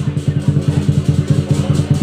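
Chinese lion dance drum beaten in quick, even strokes, about six to seven a second, each stroke ringing with a low booming tone.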